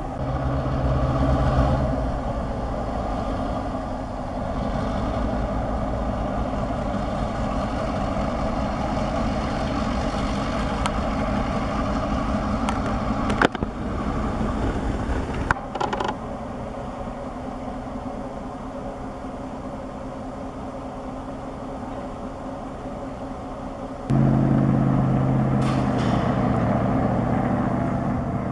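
EMD diesel locomotive running as it moves a string of freight cars slowly through the yard, a steady engine note with rolling-car noise and a couple of sharp knocks midway. Near the end the engine suddenly gets louder as the locomotive comes close.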